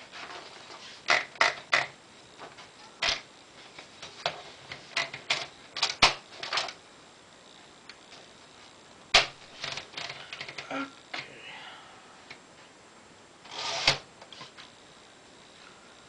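Paper being fed into a 1960s Smith-Corona Sterling portable typewriter: irregular single clicks and knocks from the carriage and paper mechanism, with a longer rustling clatter near the end.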